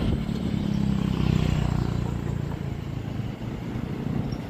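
Road traffic passing on a street: a vehicle's engine hum, loudest in the first two seconds, then easing off.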